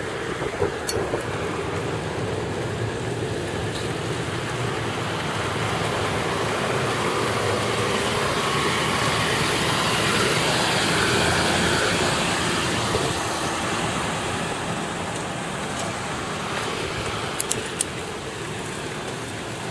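Road and traffic noise heard from a moving car, a steady rushing that swells to a peak about halfway through and then eases off. A few brief clicks come near the end.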